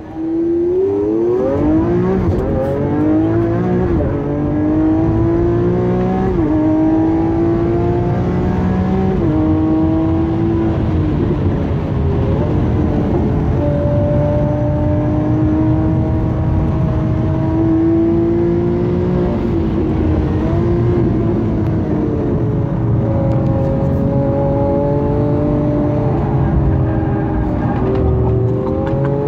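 Lamborghini Aventador S's naturally aspirated V12 at full throttle, heard from inside the cabin. The revs climb sharply as it pulls away, and several upshifts drop the pitch in the first ten seconds. It then holds a high, steady pitch, dipping about twenty seconds in before pulling again.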